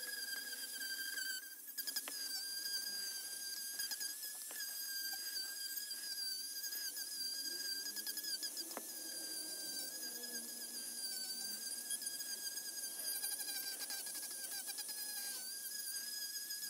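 Marathon rotary tool spinning a small sanding drum, a steady high whine with slight wavers in pitch, as it sands and softens the edges of a wooden cut-out.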